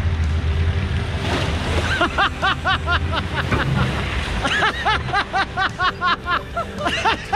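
A LandCruiser's engine rumbles as the 4WD drives through a shallow creek crossing, with water splashing around the wheels; the engine fades out about four and a half seconds in. From about two seconds in, a rapid string of high, squeaky calls repeats about four times a second and stands out above the rest.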